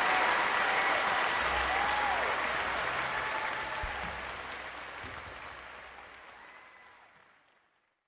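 Audience applause with a few cheering voices, fading out steadily to silence about seven and a half seconds in.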